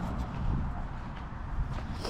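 Footsteps on dirt, a few faint soft steps over a low uneven rumble.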